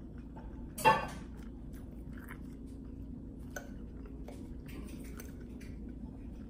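A person quietly chewing a mouthful of food, with a fork striking a glass plate in one sharp, ringing clink about a second in and faint small cutlery clicks after it.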